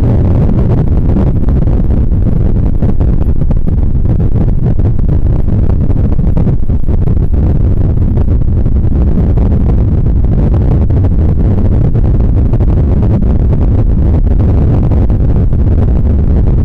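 Loud, steady low rumble with no separate events or changes, played as a creepy sound effect.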